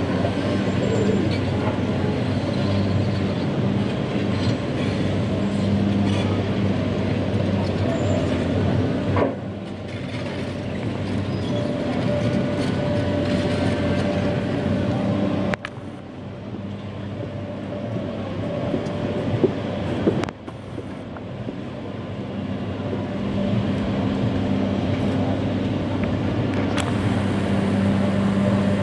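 Caterpillar hydraulic excavator's diesel engine running steadily under digging load, with a few sharp clanks of the bucket working rock and dirt. The sound drops abruptly three times and then builds back up.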